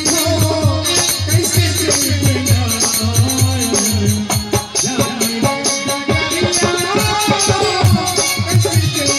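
Music with a steady beat, a shaker-like rattle keeping time, and a melody line that moves throughout.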